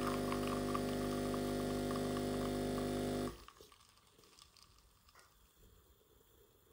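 De'Longhi espresso machine's pump humming steadily while it pulls a shot, then cutting off suddenly about halfway through. Faint drips of coffee falling into the cup follow.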